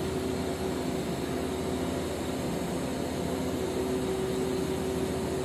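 Welding arc hissing steadily during a pipe-welding demonstration, with a steady hum underneath.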